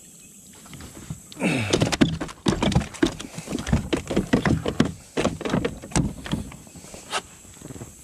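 A hooked bass splashing and thrashing at the side of a kayak as it is landed: a quick, irregular run of splashes, knocks and rattles against the hull, starting about a second and a half in and dying down near the end.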